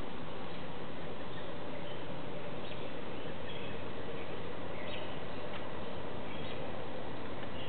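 Steady background hiss with a few faint, short bird chirps scattered through it.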